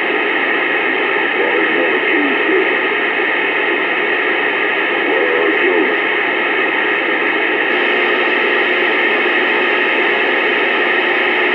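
Steady, loud hiss confined to a narrow, phone-like band, with faint voices now and then beneath it.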